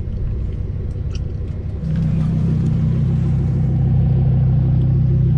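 Lamborghini's engine idling, a steady low note that gets louder and steadier about two seconds in.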